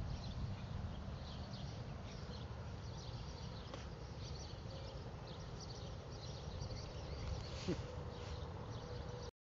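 Quiet backyard ambience: many short, high chirps over a low steady rumble, cutting off abruptly about nine seconds in.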